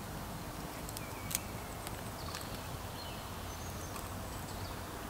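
Small tinder fire, lit from fine steel wool, burning and crackling, with a few sharp pops, the loudest about a second and a half in, over a steady outdoor hiss.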